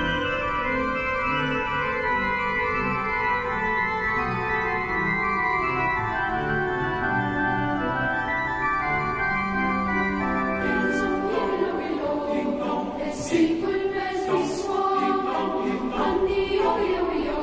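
Pipe organ playing sustained chords. About ten seconds in, a choir of men and boys starts singing a carol over it.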